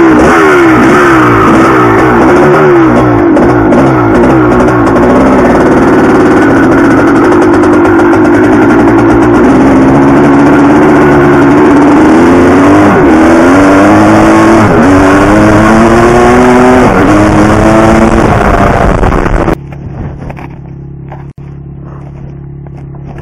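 1983 Maico 490 single-cylinder two-stroke dirt bike engine under hard riding, its pitch climbing and dropping again and again as the throttle is worked. About 20 seconds in it cuts abruptly to a much quieter, steady low engine note from a 1986 Maico 500.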